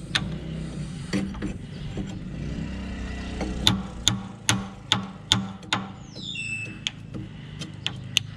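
Hand hammer striking the steel teeth and pins of an excavator bucket: a string of sharp metal clinks, about two a second through the middle, over a low steady hum. A short falling high squeal comes about six seconds in.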